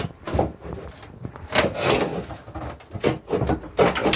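Wooden cabin joinery in a sailboat interior being pried and torn out: wood scraping and rubbing with a series of sharp knocks, and a longer scraping pull about halfway through.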